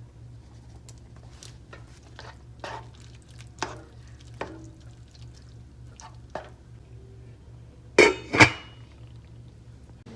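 Dishes and utensils being handled: scattered light clinks and knocks, then two loud clatters close together about eight seconds in, over a steady low hum.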